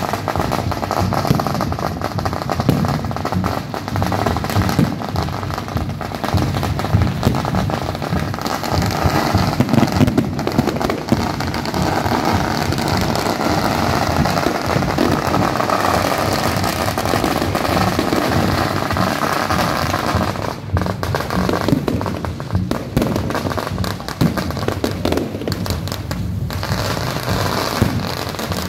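Aerial fireworks and firecrackers going off continuously in a dense, unbroken crackle of bangs.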